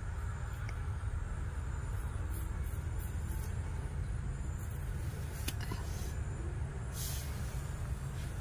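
Steady low rumble in the background, with a faint click about five and a half seconds in and a brief hiss near the end.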